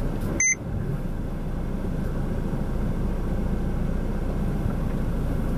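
Steady engine and road rumble inside a car's cabin as it moves off, with a brief high beep about half a second in.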